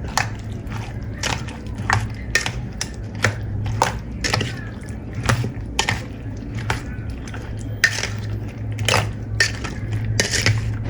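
Nibuwa sadheko, a spiced citron and yoghurt mix, being stirred in a bowl: irregular clinks and scrapes against the bowl, about one or two a second, with wet mixing sounds over a steady low hum.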